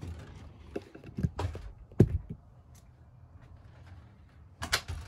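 Scattered light knocks and clicks of handling and movement in a camper, the sharpest about two seconds in and a few more close together near the end.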